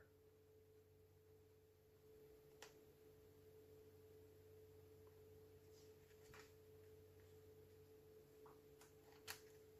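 Near silence: room tone with a faint steady hum and a few soft ticks.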